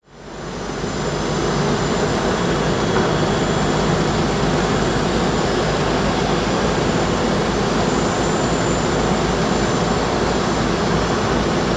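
Airbus A380 jet noise: a steady rush with a thin high whine, fading in over the first second and then holding level.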